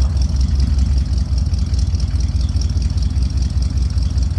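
1986 Chevy Blazer's engine idling with a steady low rumble.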